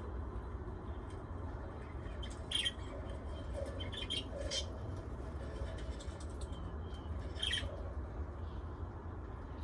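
Pet lovebirds and budgies giving a few short, scattered chirps and squawks, over a steady low hum.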